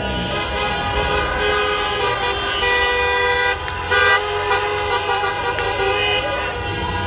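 Many car horns honking together in a celebratory procession, several held notes of different pitch overlapping without a break, with a brief louder blast about four seconds in.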